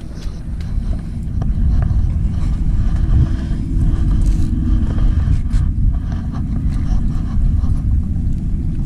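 Low, steady rumble of wind buffeting the microphone, with a few light clicks and taps from handling the fishing rod and line.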